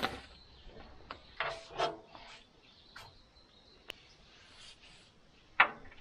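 Scattered handling noises of work on a steel sawmill frame: a sharp knock at the start, two brushing scrapes about a second and a half in, a few light clicks, and another sharp knock near the end.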